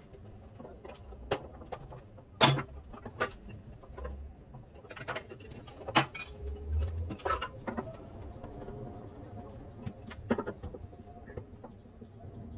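Scattered clicks and knocks of parts and tools being handled during washing-machine repair work, the loudest about two and a half, six and ten seconds in.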